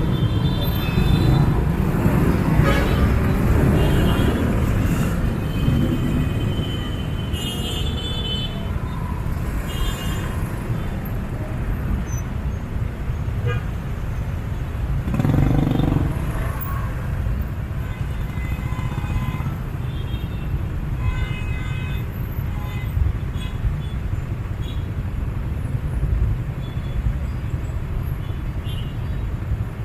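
Busy city street traffic: a steady rumble of engines, with short vehicle horn toots now and then and a louder swell about halfway through.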